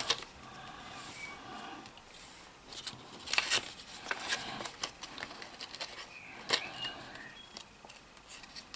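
Thin card being handled and folded along scored lines: soft rustling with scattered sharp crinkles and taps, the loudest about three and a half and six and a half seconds in.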